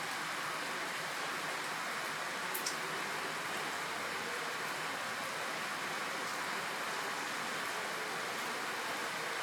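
Steady rain falling, an even hiss with no letup, with a single sharp tick about two and a half seconds in.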